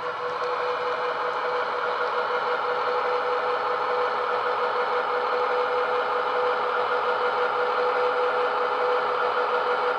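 Class 70 diesel engine sound played by a DCC sound decoder through an EM1 speaker fitted in a Bachmann Class 70 model locomotive. It runs steadily, one strong held engine note with many overtones, growing a little louder over the first couple of seconds.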